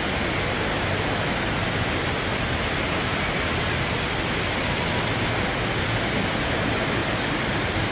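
Steady rushing of an indoor waterfall splashing down into its pool, a constant, even hiss.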